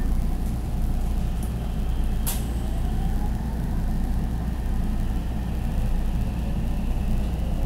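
Inside a JR 313 series 2600 subseries motor car pulling away from a station: a steady low rumble, with the traction inverter and motors whining in slowly rising tones as the train gathers speed from about two and a half seconds in. There is one sharp click about two seconds in.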